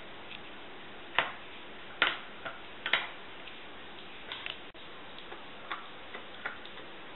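A puppy gnawing a chew treat, its small teeth cracking it with irregular sharp clicks, the loudest about one, two and three seconds in.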